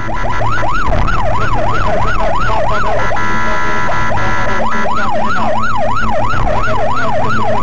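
Police car siren on a fast yelp, its pitch sweeping up and down nearly three times a second. About three seconds in it switches for nearly two seconds to a steady tone, then goes back to the yelp.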